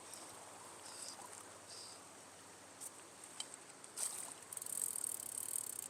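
Steady high-pitched drone of insects, such as crickets, over the faint rush of stream water. About four seconds in, a louder, irregular rough noise starts and keeps going.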